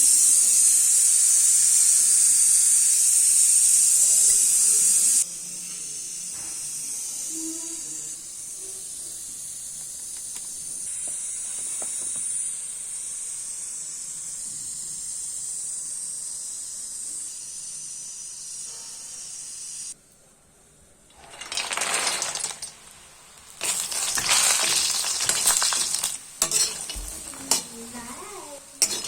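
Food sizzling in hot oil in a pan. The sizzle is loud for the first five seconds and then drops to a quieter steady hiss. About twenty seconds in it stops briefly, then comes back in loud bursts with the scrape and clatter of stirring.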